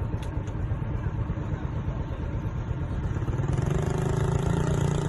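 A motor engine running steadily over a loud low rumble, with a few sharp clicks near the start; about three and a half seconds in, the engine's hum becomes steadier and louder.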